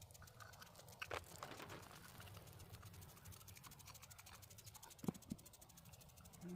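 Near silence with a few faint knocks, one about a second in and another about five seconds in.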